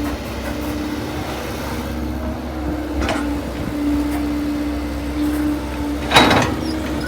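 Kobelco crawler excavator running steadily, a low rumble with a hum that rises and drops away, and a short sharp noisy burst about six seconds in.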